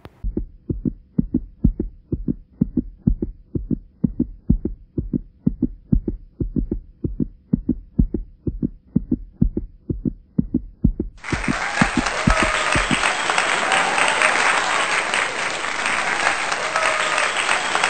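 A rapid run of dull low thumps, three to four a second, lasting about thirteen seconds. From about eleven seconds in, applause and cheering rise over it and carry on after the thumps stop.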